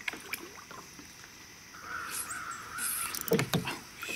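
A bird calling once, a harsh call lasting about a second, amid small knocks, then a louder thump about three seconds in and another near the end.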